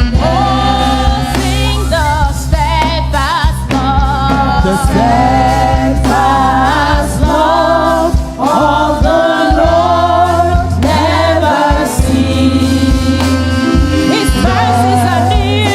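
Church praise team singing a gospel worship song with band accompaniment: voices with vibrato over a sustained bass line.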